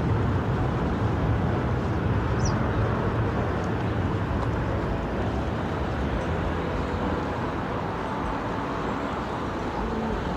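Steady low rumble of outdoor riverside ambience, slowly easing off, with one brief high chirp about two and a half seconds in.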